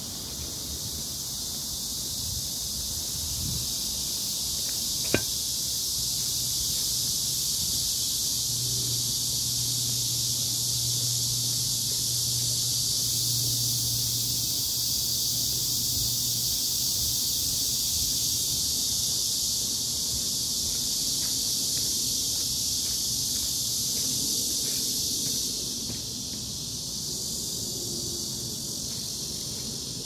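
Chorus of cicadas in summer trees: a steady, high-pitched buzzing drone that drops back a little near the end.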